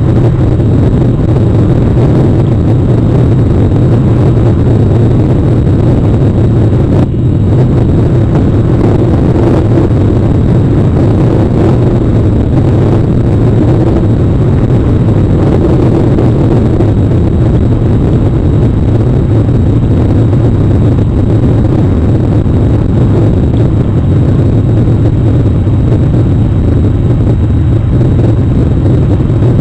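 Loud, steady noise of rain falling on an outdoor webcam's microphone and housing, heaviest in the low range, with one brief dip about seven seconds in.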